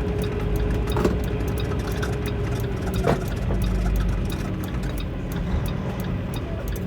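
Semi-truck diesel engine idling with a steady low rumble, with a steady hum that stops about three seconds in and two short knocks.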